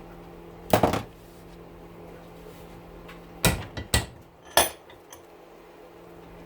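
Sharp metal-on-metal knocks on an electric motor rotor as its copper windings are knocked out: one double knock about a second in, then three more close together in the middle.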